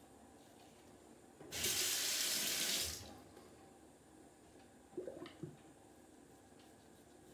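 Bathroom tap water running into a sink for about a second and a half, then cut off. A short, quieter sound follows about five seconds in.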